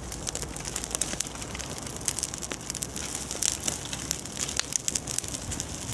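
Small wood fire of dry fine twigs and kindling crackling, with many quick sharp pops scattered over a steady hiss.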